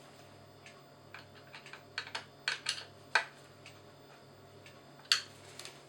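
Scattered light clicks and taps of small things being handled, about ten in all, the sharpest near the middle and about five seconds in, over a faint steady low hum.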